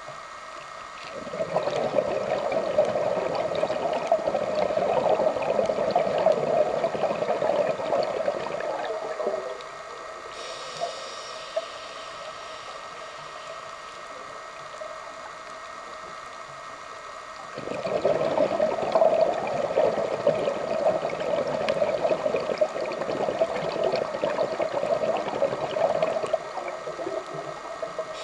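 Scuba diver breathing through a regulator, heard underwater: two long exhalations of bubbling and gurgling, each about eight seconds, with a quieter hissing inhalation between them, over a steady faint hum.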